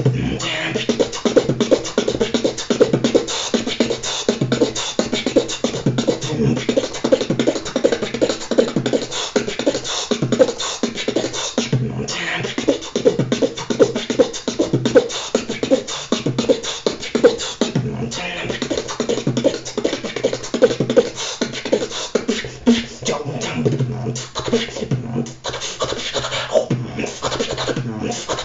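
A beatboxer performing a fast solo routine: dense, rapid drum sounds made with the mouth and voice.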